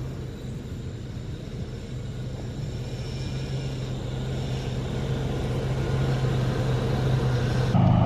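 1991 Ford Aerostar minivan driving slowly up, its engine a steady low hum that grows louder as it approaches.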